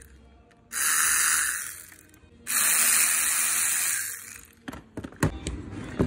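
Two hissing spray bursts, each about a second and a half long, aimed into a small hedge trimmer engine's open clutch housing. A few sharp clicks follow near the end.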